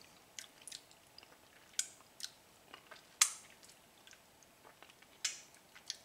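Faint, scattered wet mouth smacks and small clicks of someone eating soft, ripe pawpaw pulp, with one sharper smack about three seconds in.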